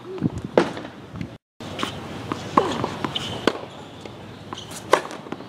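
Tennis serve practice: sharp pops of the racket hitting the ball, spaced a second or two apart, along with balls bouncing on the hard court.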